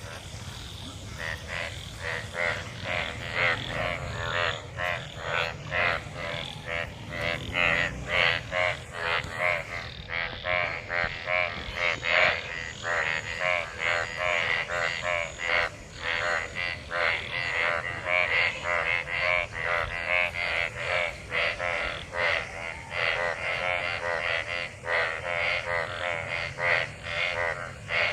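A chorus of many frogs croaking in rain-filled water, with rapid overlapping calls repeating without a break: male frogs calling in a breeding chorus after monsoon rain.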